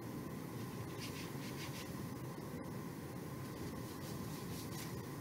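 Fingertips rubbing a white paste onto paper and chipboard: a few faint rubbing strokes, about a second in and again near the end, over a steady low hiss.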